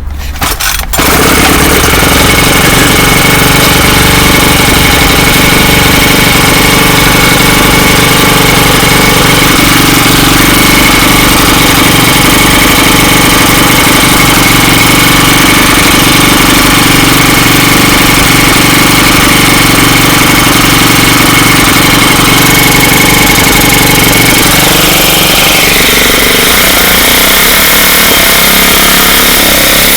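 Ryobi four-cycle string trimmer pull-started on half choke, catching about a second in, then running loudly and steadily; a little past three-quarters of the way through its pitch drops slightly.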